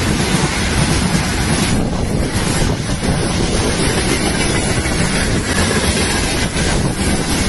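Freight train of loaded flatcars passing close by: a loud, steady rumble of wheels on the rails.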